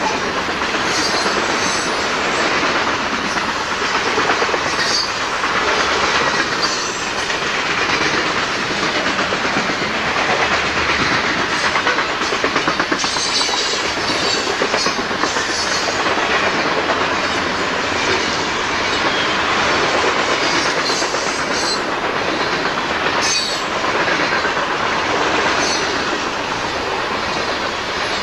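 Freight cars (covered hoppers, then box-shaped cars) rolling past close by: a steady rumble with wheels clicking over the rail joints, and brief high wheel squeals now and then.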